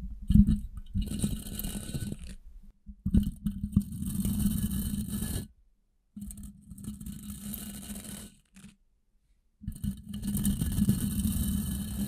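Toilet brush bristles scratching against a microphone's metal grille, close up, in four passes of about two seconds each with short pauses between.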